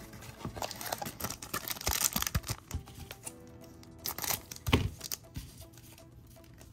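A trading card pack's wrapper being crinkled and torn open in dense crackling bursts, with two dull thumps from handling, right at the start and a little past halfway, over soft background music.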